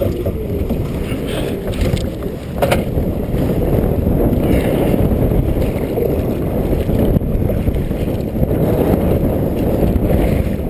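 Wind rumbling on the microphone and water washing against a kayak as it is paddled out through choppy water, with a single sharp knock about three seconds in.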